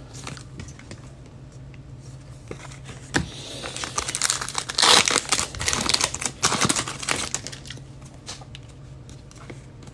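Trading card pack wrappers crinkling and tearing as packs are ripped open and the cards handled, with scattered rustles and clicks that are busiest in the middle of the stretch.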